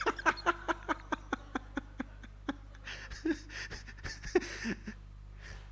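Laughter: a quick run of short bursts, about five a second, fading over the first two and a half seconds, then a few softer scattered laughs.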